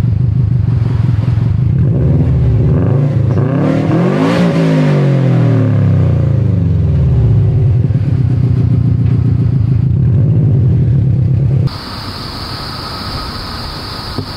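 2003 Subaru WRX wagon's turbocharged 2.0-litre flat-four idling through its exhaust, revved once: the pitch climbs to a peak about four seconds in and drops back to idle by about seven seconds. Near the end the sound cuts abruptly to a quieter steady hum with a faint high whine.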